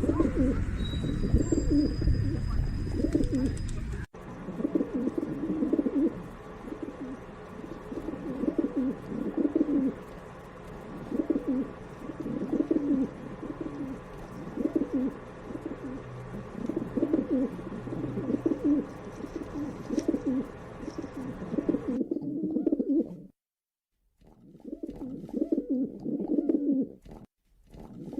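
Pigeons cooing again and again in low, throaty coos, about one a second. A low rumble runs under the first few seconds, and the sound cuts out briefly a few times near the end.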